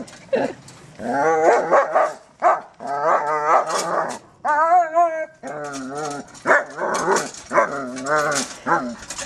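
German Shepherd dog vocalizing excitedly in a long run of short, wavering grumbles and barks, with a higher drawn-out whine about five seconds in.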